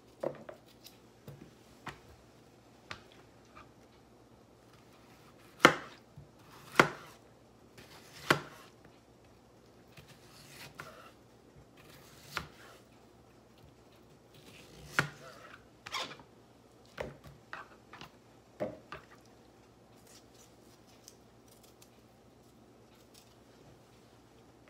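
Kitchen knife slicing peeled green tomatoes thin on a plastic cutting board: irregular sharp knocks of the blade against the board, with pauses of a second or more between cuts.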